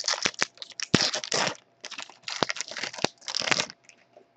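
A trading-card pack wrapper being torn open and crinkled by hand, in three rustling bursts with sharp clicks.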